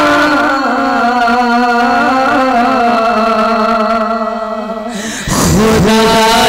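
A man singing a naat through a microphone and PA, holding long wavering notes. He tails off briefly about five seconds in, then starts a new phrase.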